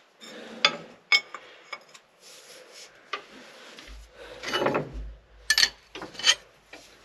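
Hand tools and metal parts clinking, knocking and scraping while the power shift control valve is worked loose from the top of a Case 1070 tractor's transmission. There are scattered sharp clicks and a longer scraping rub with a dull thump about halfway through.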